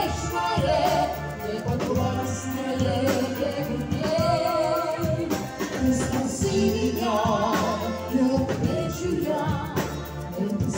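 Live brass band playing dance music with a singer, whose voice carries the melody with a wide vibrato over a steady low bass line.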